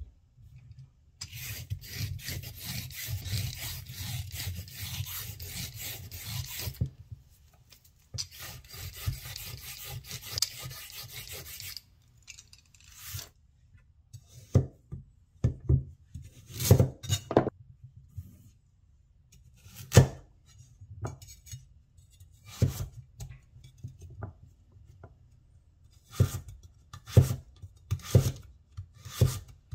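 The carrot's skin being scraped off in two long stretches of steady scraping, with a short pause between them. After that, a Chinese vegetable cleaver cuts through the carrot onto a wooden cutting board in separate chops, which come faster near the end.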